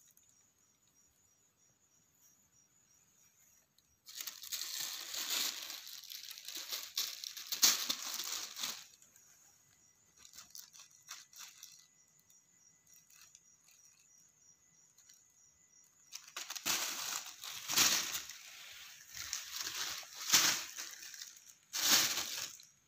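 Thin plastic bag crinkling and rustling as a kitten moves about and pounces in it. The crinkling comes in bursts: from about four seconds in to about nine, briefly around eleven, and again from about sixteen seconds until just before the end, with quiet stretches between.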